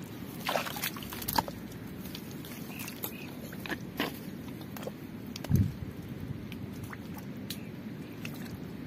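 Bare hands digging in soft wet mud and shallow water, squelching and splashing, with scattered sharp clicks and one heavier thump about five and a half seconds in.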